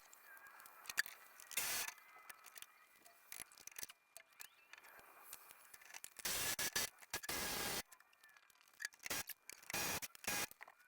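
Hand tools working on metal truck parts: scattered light clicks and scrapes, with three short hissing bursts, the longest about a second and a half, around the middle.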